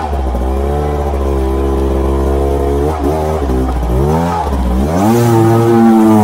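Enduro dirt bike engine revving, its pitch climbing, holding and dropping several times as the throttle opens and closes, highest and loudest near the end.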